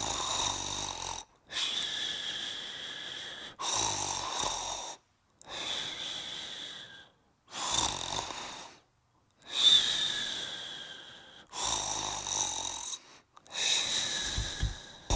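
Dog snoring: about eight slow, rhythmic breaths, each lasting about one and a half to two seconds, with a thin high whistle running through each one.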